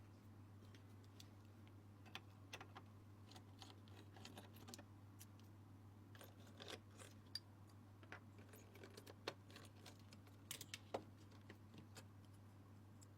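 Faint, irregular small clicks and taps over a steady low hum, a few of them sharper about two-thirds of the way in.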